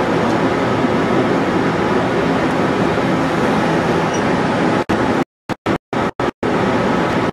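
Caterpillar C27 V12 diesel generator set running with a steady drone. About five seconds in, the sound starts cutting out in short gaps, a fault in the camera's audio.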